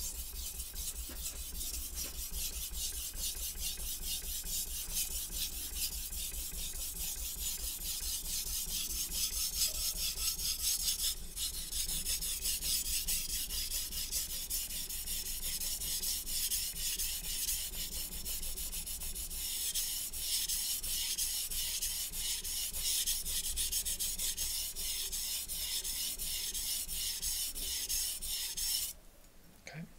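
Shun chef knife's steel edge scraped back and forth on a wet Naniwa Chosera whetstone in quick, even sharpening strokes, a steady gritty rasp. There is a brief break about a third of the way in, and the strokes stop abruptly about a second before the end. The stone is not loading up and is taking very fine material off the edge.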